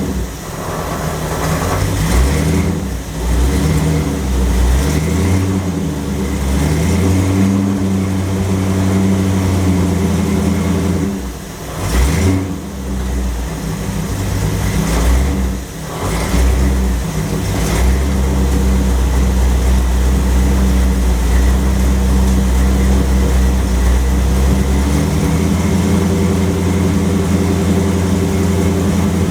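Car engine running and revving up and down while a 727 TorqueFlite automatic is tested for shifting, with two brief drops in level in the middle. About 18 seconds in it settles to a steady speed, and it changes pitch once more near the end.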